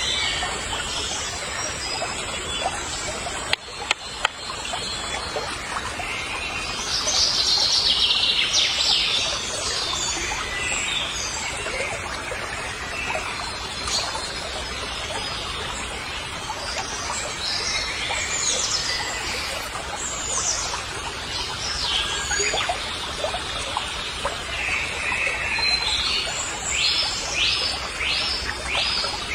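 Several birds chirping and calling over steady outdoor background noise, with a quick run of repeated high notes near the end and a couple of sharp clicks about four seconds in.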